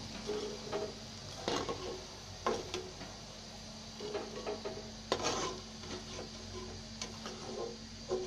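Potato pakoras frying in hot oil with a steady sizzle, while a metal slotted spoon scrapes and knocks against the wok several times as the fried pakoras are lifted out.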